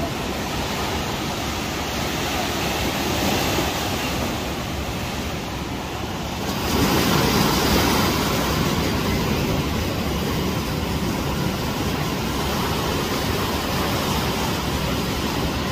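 Rough-season sea surf: heavy waves breaking and washing up the shore in a continuous roar of water, louder from about six and a half seconds in.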